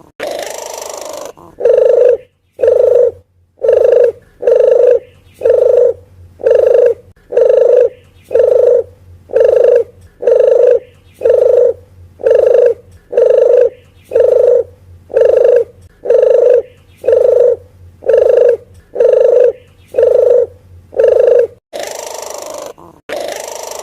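Puter geni dove call played as a bird lure: short cooing notes repeated steadily, about three every two seconds, with a longer, harsher call at the start and again near the end.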